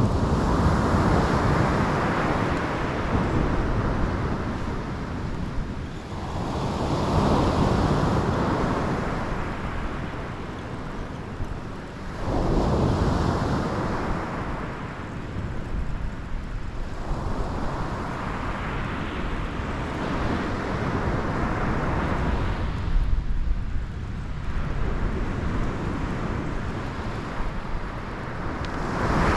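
Surf breaking on the shore: the wash swells and fades about every five or six seconds, with wind rumbling on the microphone throughout.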